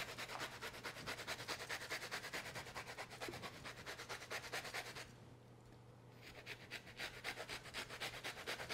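Lemon rind being grated on a small handheld grater, a run of quick, even rasping strokes. The strokes stop for about a second around the middle, then start again.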